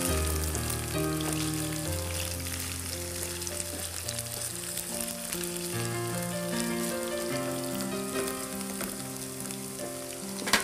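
Cubes of taro frying in hot oil in a frying pan: a steady sizzle with fine crackling as they are stirred with a wooden spatula. Soft background music with a slow melody plays underneath.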